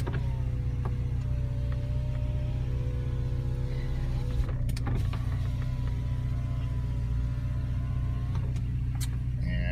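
Porsche 944 Turbo's electric passenger window motor whining as the glass travels for about four seconds, stopping with a click, then running back the other way for another three and a half seconds, over the steady hum of the car's engine at idle.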